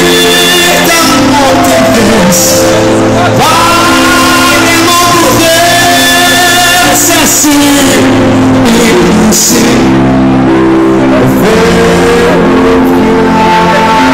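Live music: a male singer holding long sung notes that glide between pitches over a backing band, recorded loud on a mobile phone.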